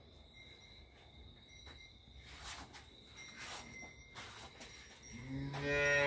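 A cow moos once, a low, steady call starting about five seconds in.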